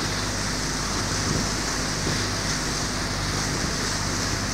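A boat under way: a steady engine hum beneath the hiss of wind on the microphone and water rushing past the hull.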